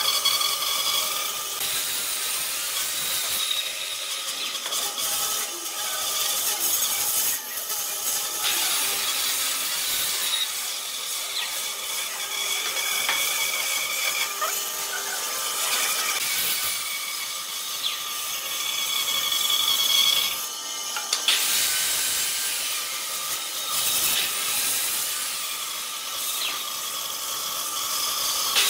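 Band saw running and cutting a long curve through a thick wooden block: a steady sawing noise with a faint high whine that comes and goes.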